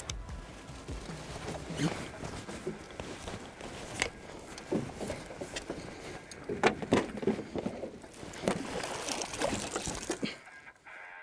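A hooked pike thrashing at the surface as it is netted beside a small boat: irregular splashing with sharp knocks. The splashing stops shortly before the end.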